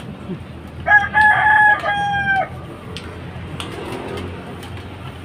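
A rooster crowing once, starting about a second in, in a call of a second and a half that ends on a long held note.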